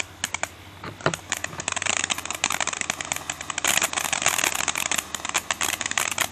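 Black Cat 'Monkeys in a Barrel' ground firework fountain crackling: a rapid, irregular stream of sharp pops from its sparking stars, sparse at first and growing denser and louder past the middle.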